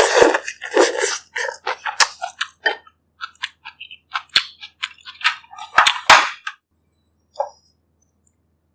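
Close-miked eating of bak kut teh, the pork rib soup in herbal broth: wet mouth sounds of chewing and slurping, broken by several sharp clicks. The sounds stop about seven seconds in.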